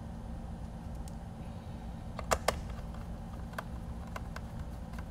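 Small screwdriver driving a screw into the plastic case of a radio transmitter: two sharp clicks about two seconds in and a few faint ticks later, over a steady low hum.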